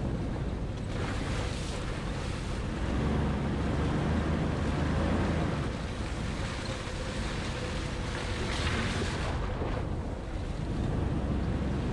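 Jeep driving along a wet, muddy off-road trail: a low engine rumble under a steady rush of tyre, water and wind noise, which swells twice.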